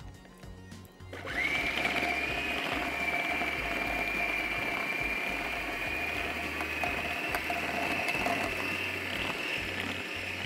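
Electric food chopper starting up about a second in and running steadily with a high whine, grinding raw chicken into mince.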